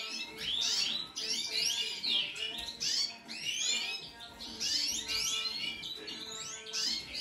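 Pale white mutation finch with yellow wing patches singing a fast, continuous twittering song of rapid high chirps and trills.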